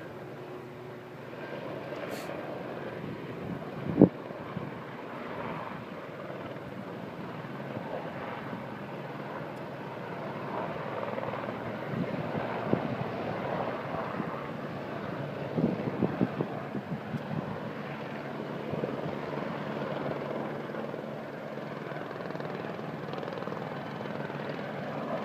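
Helicopter flying, a steady drone of rotor and engine, with a sharp knock about four seconds in and a few smaller knocks later on.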